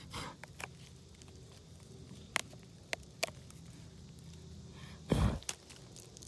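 Scattered light clicks and rustles of handling as clusters of wild oyster mushrooms are pulled off a rotting log by a gloved hand, with one heavier muffled thump about five seconds in.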